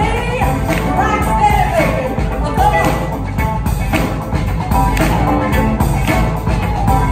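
Live band playing an upbeat rock-funk groove, with drum kit and electric bass driving a steady beat under a melodic lead line.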